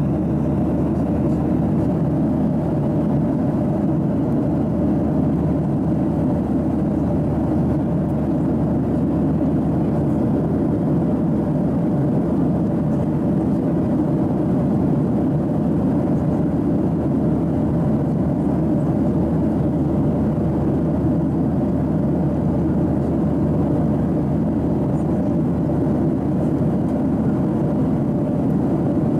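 Steady cabin noise of a Boeing 737-800 in cruise, heard from inside the cabin: an even, unchanging drone of its engines and airflow, with a faint steady hum under it.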